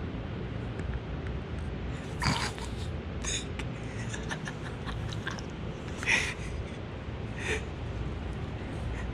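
A steady low rumble of outdoor wind and handling noise, with four short, sharp breaths or exhales spread through it.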